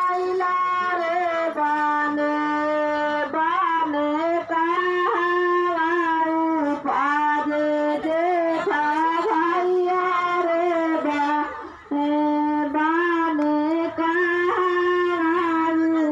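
Music from a Bhojpuri folk song: a single reedy melody line of long held notes that bend and slide, with short breaks between phrases, sounding like a wind instrument and with no words sung.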